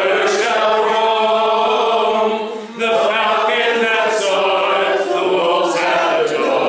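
A small group of men and women singing a song together, with a short break for breath between lines a little under three seconds in.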